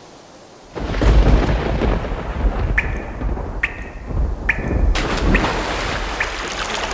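A loud rushing rumble of noise sets in suddenly about a second in and carries on steadily. Short bird chirps sound about once a second over it.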